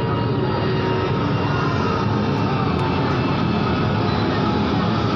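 Steady low drone of a docked passenger ship's engines and machinery, heard from on deck.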